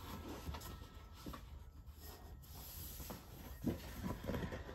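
Cardboard packaging rubbing and scraping as a tight sleeve is pushed and worked against a cardboard box, in irregular rustling strokes.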